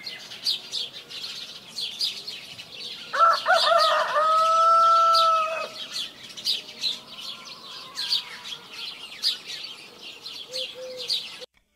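Small birds chirping busily and continuously, with a rooster crowing once about three seconds in: a wavering rise that settles into a long held note of roughly two seconds.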